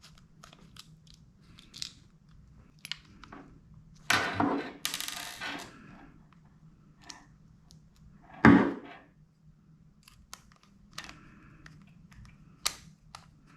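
Hands working a screw out of and back into a small plastic CO detector case to fit a belt clip: scattered small clicks and taps, a scraping rustle about four seconds in, and one louder knock about eight and a half seconds in.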